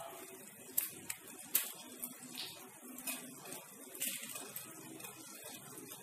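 Several faint clicks and light splashes as green cardamom pods are dropped into water in a stainless steel saucepan, the sharpest about a second in.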